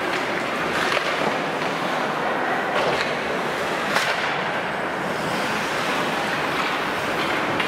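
Ice hockey rink sound during play: a steady hiss of skates on the ice, with a few sharp clacks of sticks and puck, the sharpest about four seconds in.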